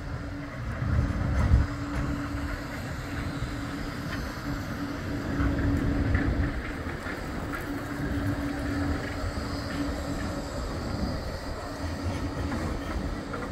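Bombardier Flexity 2 tram running past close by on street track, its wheels and running gear rumbling under a steady hum that drops out and comes back a few times, with a few faint clicks.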